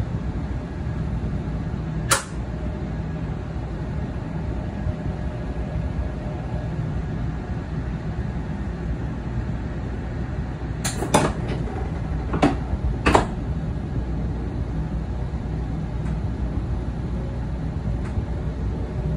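N700 series Shinkansen pulling out, heard from inside the vestibule: a steady low rumble as it gets under way, with a few sharp knocks about two seconds in and again around eleven to thirteen seconds. Near the end a faint whine rises slowly in pitch as the train gathers speed.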